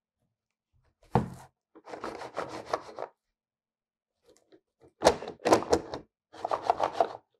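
Several short bursts of rapid knocking and clattering with quiet gaps between them. The loudest is a sharp single hit about a second in, and three more loud strikes come about five seconds in.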